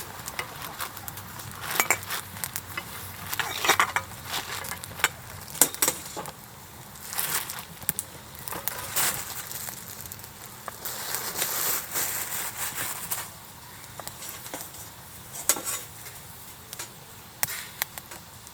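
Irregular clinks, knocks and clatter of camp cooking gear being handled, with a few short hissing stretches.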